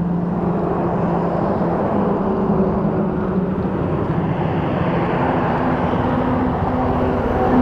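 Steady highway traffic noise: trucks and other vehicles running past on the road, with a low engine hum, as a motorcycle rides up along the shoulder.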